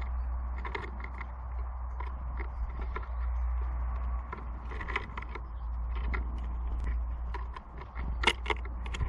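Small birds at a feeder: irregular sharp taps, clicks and scrapes of pecking and landing, several close together near the end, over a steady low rumble.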